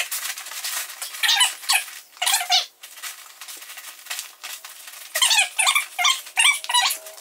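Sleeping pad squeaking as it is pressed down and rolled up tightly by hand: runs of short, high, wavering squeaks that come in bunches with each push.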